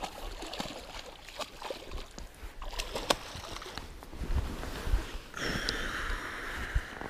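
A hooked coho salmon splashing and thrashing in shallow water at a grassy stream bank, mixed with dry grass rustling and knocking against a body-worn camera. A steadier hiss comes in about two-thirds of the way through and lasts over a second.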